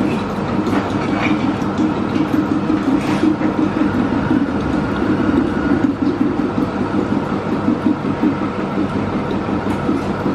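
Milk vending machine dispensing milk into a glass bottle: its pump runs with a steady hum.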